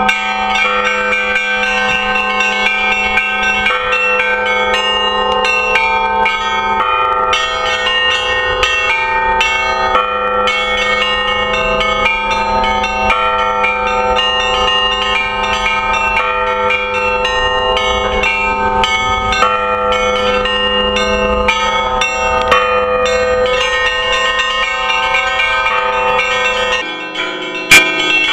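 A set of hanging church bells rung in the Russian manner, their clappers pulled by ropes, in a continuous festive peal of many overlapping strokes of bells at different pitches. Near the end the ringing briefly thins, with one sharp knock, then goes on.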